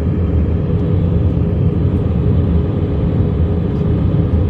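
Jet airliner in flight heard inside the passenger cabin: a steady low rumble of engine and airflow noise, with a faint steady hum.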